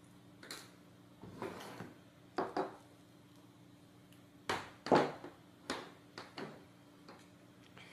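A black mains power cable being uncoiled and laid out on a table: its plastic plug and cord knock and rustle in a string of short clicks and taps, the loudest about five seconds in.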